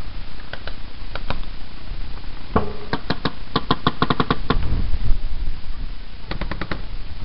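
Paintball markers firing: a few single shots, then a fast string of about fifteen shots over two seconds, and a short quick string of about five near the end.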